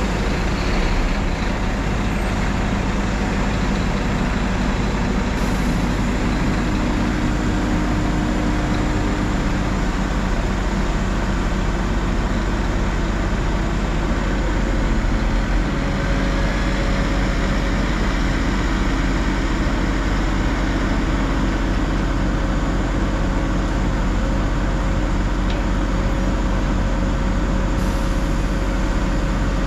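Steady running of a Liebherr LTM1350-6.1 mobile crane's diesel engine, with a low hum and a faint steady whine that comes in about halfway.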